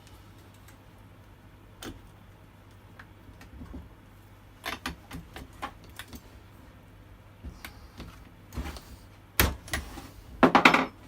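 Small metal tools clinking and knocking against a chainsaw while its spark plug is being taken out. Scattered clicks build to a louder rattling clatter near the end.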